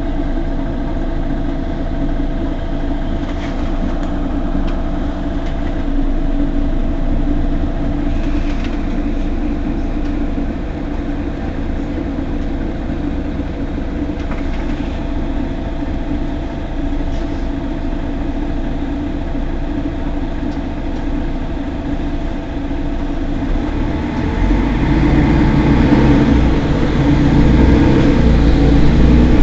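Mercedes-Benz Citaro G C2 articulated bus idling at a standstill with a steady engine hum. The sound swells louder about five seconds before the end.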